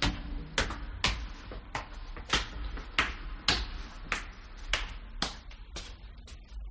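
Footsteps climbing the rungs of an iron ladder, a series of sharp knocks about two a second that grow fainter toward the end.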